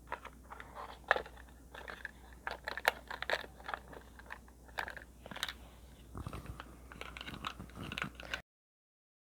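Close handling of tiny plastic miniature pieces and their packaging: irregular crinkles, rustles and small sharp clicks, which cut off to dead silence at an edit near the end.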